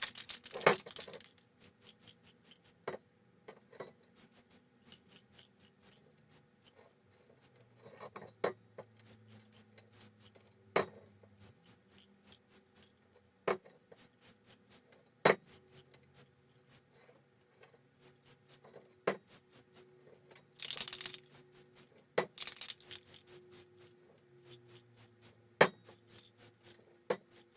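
Scattered sharp clicks and light metallic clinks, like a steel wheelbarrow wheel rim being handled and checked for burrs, over a faint fast regular ticking.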